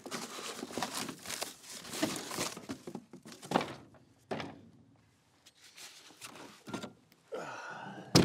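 Cardboard and packing material rustling and crinkling as parts are pulled out of a box, with a few separate knocks of metal parts being handled and set down. The loudest is a sharp knock at the very end.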